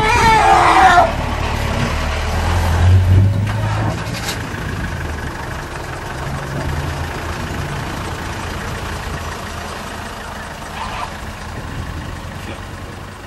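A vehicle engine idling low and steady, slowly fading. At the very start comes a short, high, wavering call that falls in pitch: an Asian elephant trumpeting.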